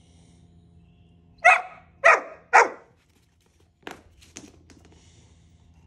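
Deutsch Drahthaar puppy barking three times in quick succession, about half a second apart, followed about a second later by two faint knocks.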